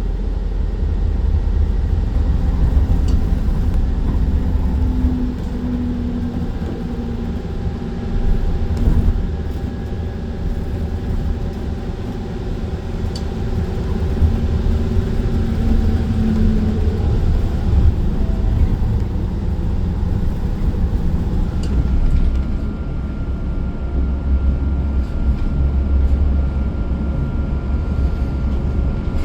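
Transit bus running along a road, heard from inside the cabin: a steady low engine and road rumble with faint tones that shift in pitch, and a thin steady tone that comes in near the end.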